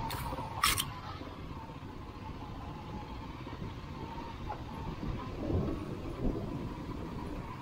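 Dirt bike engine running at low revs over a rough dirt track, a steady rumble. Two sharp clicks come within the first second, and a couple of low thumps come near the end as the bike rides over ruts.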